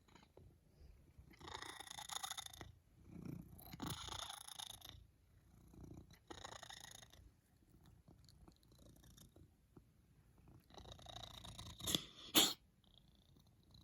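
A sleeping pet snoring: four slow, noisy breaths a few seconds apart, the last ending in two short, sharper and louder breaths.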